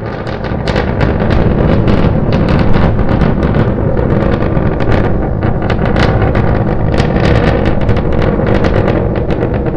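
Rumble of Starship SN9's three Raptor rocket engines during ascent, full of dense crackling. It swells about half a second in and then holds steady.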